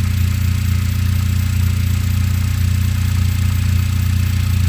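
2013 Cadillac ATS's 2.0-litre turbocharged four-cylinder idling steadily and running rough, with a misfire on cylinder 4.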